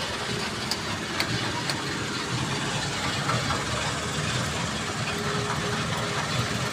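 An engine runs steadily with a low pulsing rumble. A few light clicks or taps sound over it.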